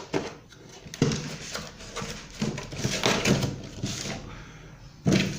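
Handling noise from ceiling fan parts and their packaging: irregular knocks, clicks and rustling, with a louder knock about a second in.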